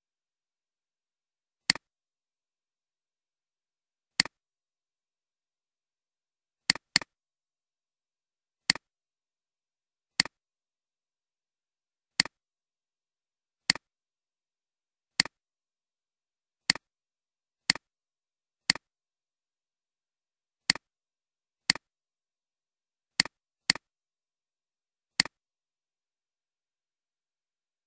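Computer mouse clicking: about sixteen sharp single clicks one to two seconds apart, with a couple of quick double-clicks, and silence between them.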